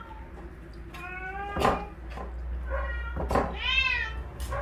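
Domestic cats meowing, three calls, the last rising and then falling in pitch, with a sharp click about one and a half seconds in.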